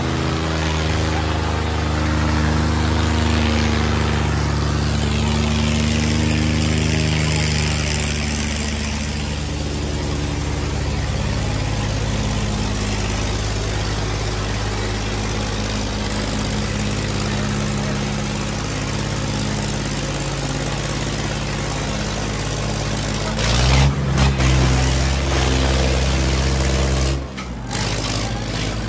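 Diesel tractor engines running hard under a heavy pulling load, a steady deep drone. About three-quarters of the way through, the sound surges louder for a few seconds, then briefly drops away before running on.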